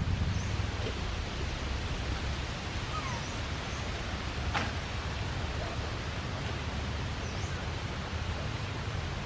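Outdoor ambience: a steady hiss with a low rumble, a few faint high chirps now and then, and one sharp click about four and a half seconds in.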